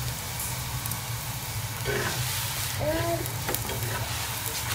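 Mooli paratha sizzling in ghee on a hot iron tawa, with a spatula scraping and pressing it against the griddle.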